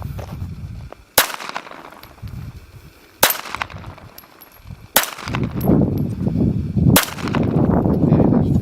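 Four single gunshots about two seconds apart, aimed shots during a timed shooting drill, with low rustling movement noise between them.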